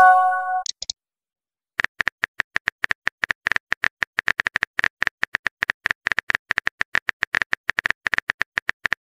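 Phone message-received chime, a short chord of a few steady tones followed by two quick high chirps. After about a second's pause comes a long, rapid run of keyboard tap clicks, many a second, as a text reply is typed.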